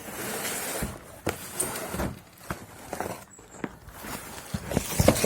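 Cardboard firecracker box being opened and its packets handled: rustling and scraping with a string of short knocks, the loudest cluster near the end.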